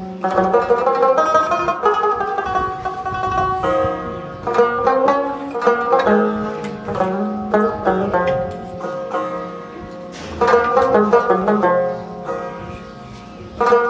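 Background music led by a plucked string instrument, playing quick picked notes over a held low note.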